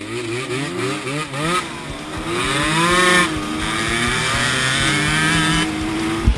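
Dirt bike engine revving in quick rising bursts, then climbing and holding a steady pitch before cutting off abruptly, followed by a single sharp knock near the end.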